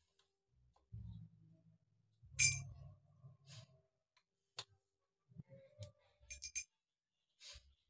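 Metal tubes of a shoe rack clinking and knocking against each other and their joints as they are fitted together: a dull knock about a second in, a sharp ringing clink near two and a half seconds, a single click in the middle, then a quick cluster of clinks and one more near the end.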